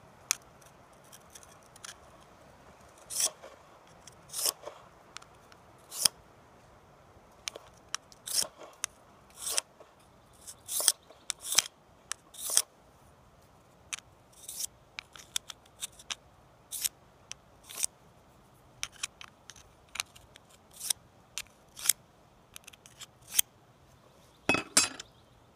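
A steel edge being honed on a DMT extra-fine credit-card diamond whetstone: short, irregular scraping strokes, dozens of them, with a quick run of strokes near the end.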